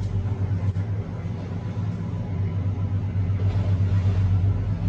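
Steady low drone of marine engines with a rushing hiss of wash over it.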